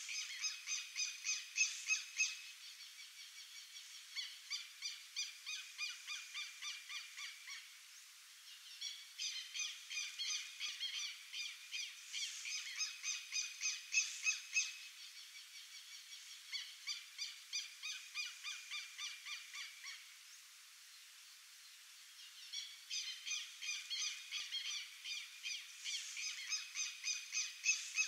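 Animal calls repeated rapidly, about three or four a second, in bouts of several seconds with short pauses between; several callers overlap.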